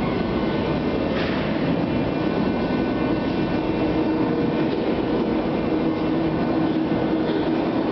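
Metro train running steadily along the track: continuous rail rumble under a steady low hum, with a brief click about a second in.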